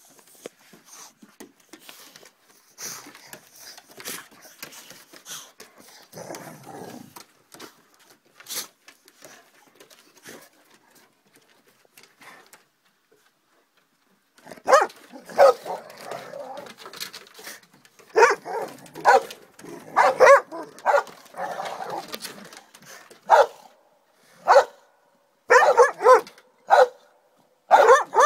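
Boxer dog barking repeatedly in play, the barks coming thick and loud in the second half. Quieter scuffling and clicks come before the barking starts.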